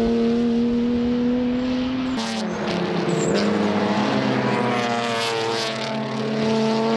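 A race car engine holding high revs at a steady pitch. After a cut about two seconds in, several race car engines run together, their pitch dropping and then climbing again as they work through a corner.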